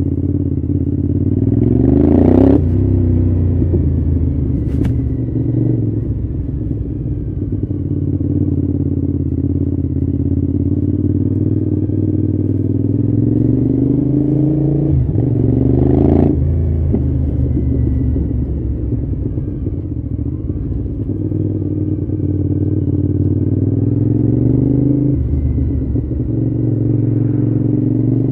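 Cagiva Raptor V-twin motorcycle engine, heard from on board while riding slowly. The revs climb in three short pulls, near the start, about halfway and near the end, and each pull ends with a sudden drop in revs. Between the pulls the engine runs low and even, with a single sharp click about five seconds in.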